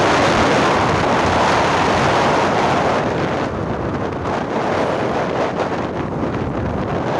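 Wind buffeting the microphone on a moving motorcycle, a loud even rush that eases a little about three seconds in.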